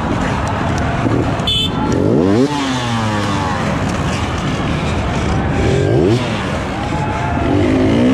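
Enduro dirt bike engine revving in repeated bursts, pitch climbing then dropping back each time, as the bike is worked over a log obstacle. A sharp knock about one and a half seconds in.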